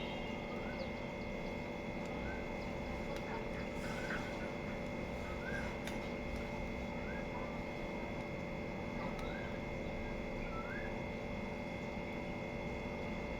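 Faint bird chirps, short rising calls every one to two seconds, over a steady hum.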